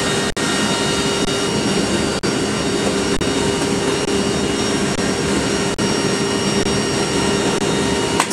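Loud steady drone of the KC-130J Hercules's four turboprop engines and propellers, heard from inside the cargo hold with the rear ramp open: a constant hum with a strong low note under a rushing noise, with a few brief dips.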